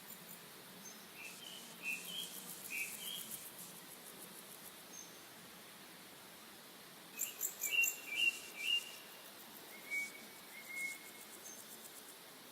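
Birds chirping in two short bursts of quick notes, then two longer single whistled notes near the end, over faint insect trilling and a low hiss: a recorded nature soundscape.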